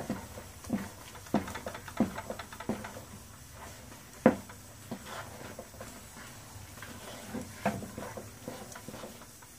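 A wooden stirrer working thick ragi mudde (finger millet flour cooked into rice) in a pot, knocking against the pot in a steady rhythm of about one or two strokes a second. The sharpest knock comes about four seconds in. This is the stage of stirring the flour in until it is fully mixed.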